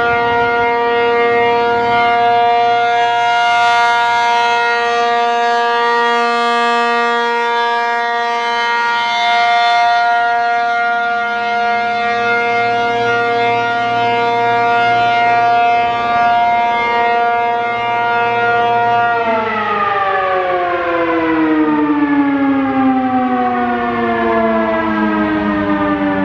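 ASC RM-135/T-135 AC outdoor warning siren sounding its steady full-alert tone. About three quarters of the way through, the tone ends and the pitch falls steadily as the siren winds down.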